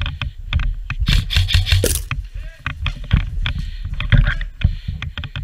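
A player's own movement noise: irregular knocks and clicks of gear and footsteps, with a scraping rustle about a second in and a steady low rumble of wind and handling on the body-worn microphone.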